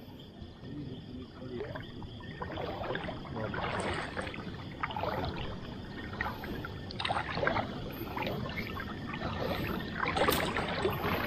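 River water splashing and dripping as a gill net is hauled up out of the water by hand, a run of irregular small splashes that gets busier after about two seconds, with a louder splash near the end.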